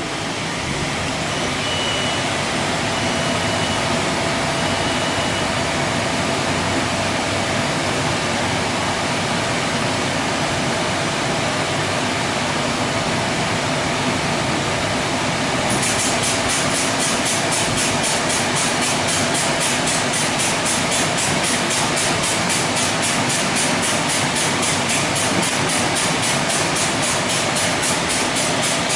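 WashTec SoftWash rollover car-wash gantry running as the program starts: a steady machine noise with a steady whine. About halfway through, a loud hiss of spraying joins in, pulsing about three times a second, as the gantry travels along the car in the opening solvent stage.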